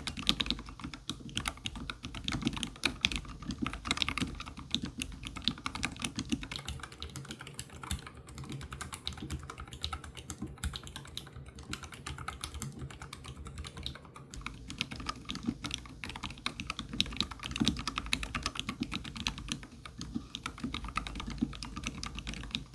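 Continuous fast typing on a YUNZII L75 low-profile mechanical keyboard fitted with Otemu red linear switches: a dense, unbroken run of key clicks.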